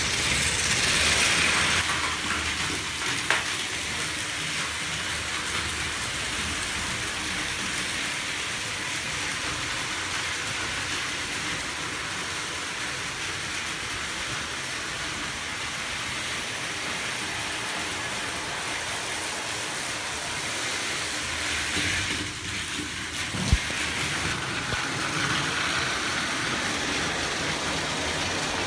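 Battery-powered Plarail toy trains, including a Seibu 9000 series model, running on plastic track: a steady whirring hiss from the small motors and wheels, with a sharp click about 23 seconds in. The train runs a little slow, which the owner puts down to tired batteries.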